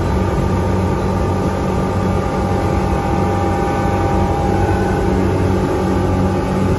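Twin Suzuki outboard motors running steadily at high revs, about 5,700 rpm in forward gear, with the boat running fast, over a steady rush of wind and water.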